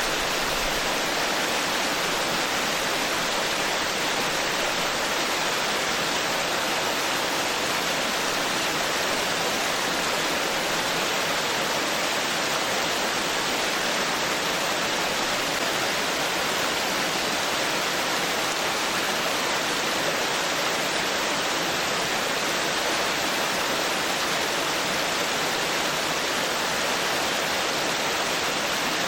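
Stream babbling and rushing over rocks, a steady unbroken wash of water noise.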